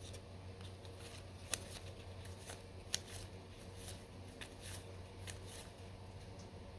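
Trading cards being handled and flipped through by hand: light, scattered card slides and snaps, with two sharper flicks about a second and a half and three seconds in, over a faint steady low hum.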